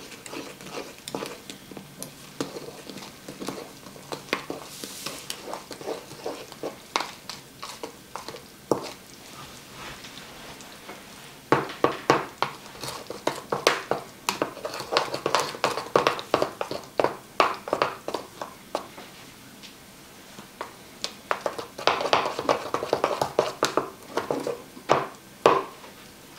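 A spoon stirring pancake batter in a mixing bowl, clinking and scraping against the bowl's sides. The strokes come sparsely at first, then in quick, dense runs from about halfway through, with a short lull before a final run.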